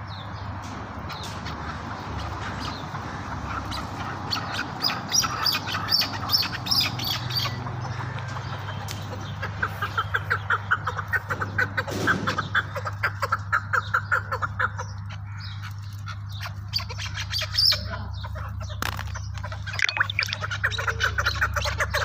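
Caged chukar partridges calling: runs of rapid, repeated clucking notes, about five a second, coming in several bouts, over a steady low hum.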